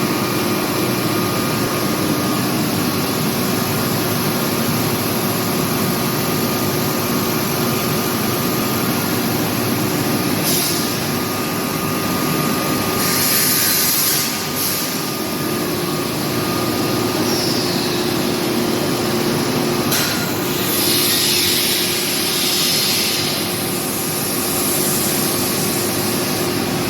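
Panasonic YD-400AT3 welding machine running: a steady machine hum and noise, with several short bursts of hissing partway through.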